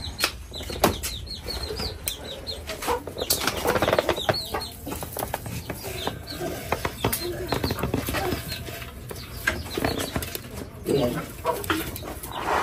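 Chickens in a yard: wings flapping, clucking and short high chirps among scuffling clicks.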